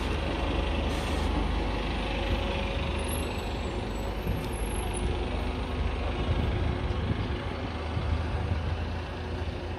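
Bus engine running steadily close by, a continuous low rumble.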